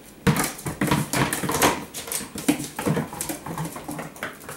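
Italian greyhound puppies at play on a vinyl floor: a quick run of clicks and taps from paws, claws and a bouncing ball, mixed with small dog noises, tapering off near the end.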